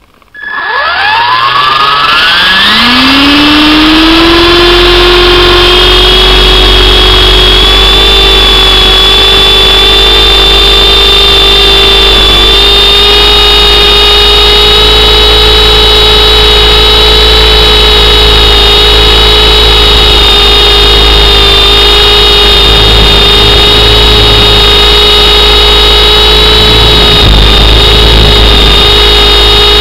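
RC helicopter's motor and rotor spooling up, the whine rising in pitch over the first few seconds, then running at a steady high pitch in flight. Heard loud and close from a camera mounted on the helicopter itself.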